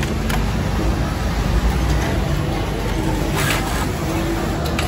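Industrial sewing machine stitching a pocket onto a shirt panel, over the steady machine hum of a garment factory floor.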